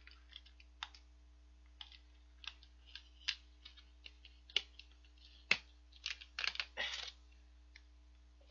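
Plastic packaging clicking and crackling in irregular sharp snaps as a sealed pack of pickled chicken radish is handled and its film lid picked at to tear it open, with a denser run of crackling about six to seven seconds in.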